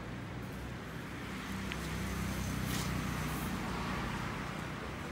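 Steady low hum of outdoor street ambience with traffic, even throughout with no sudden events.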